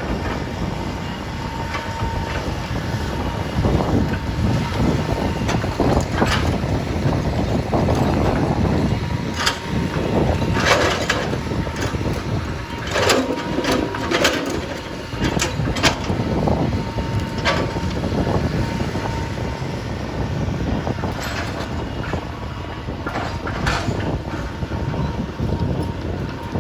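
Backhoe running with a steady low engine rumble, broken by scattered sharp metal clanks and knocks, thickest around the middle.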